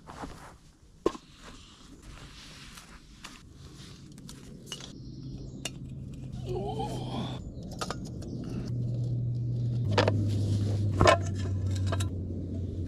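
Backpacking gas stove burner running with a low steady hum that grows louder, with a couple of sharp metallic knocks near the end as a sandwich toaster is handled over it.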